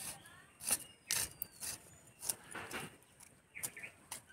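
A small metal blade digging and scraping in soft, damp garden soil: irregular sharp scrapes and clicks about every half second.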